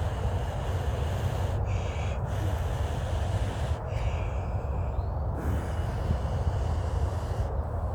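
A person blowing long, steady breaths onto a freshly made friction-fire coal to nurse it toward flame, the rushing breath broken by short pauses to inhale about every two seconds.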